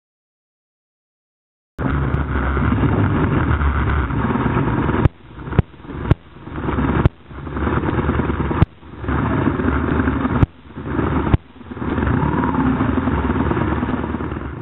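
Motorcycle engine and wind noise on a camera riding with the bike. It starts abruptly after about two seconds of silence and is broken several times by sudden clicks and short dips before coming back to full level.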